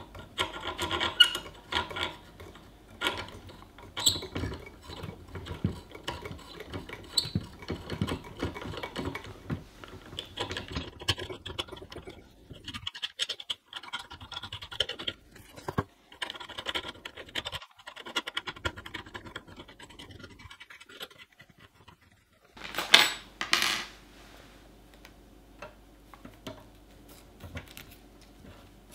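Metal and plastic 3D-printer parts being handled while the Z lead screw is fitted: scraping, rubbing and small clicks, with a short louder scrape about three quarters of the way through.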